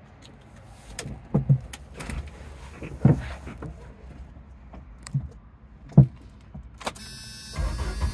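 A handful of separate knocks and thumps from hands and the camera moving about inside a Jeep's cab. A steady hum comes in near the end.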